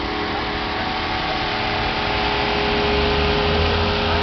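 A car engine idling steadily under a broad hiss, with a low rumble swelling about three seconds in.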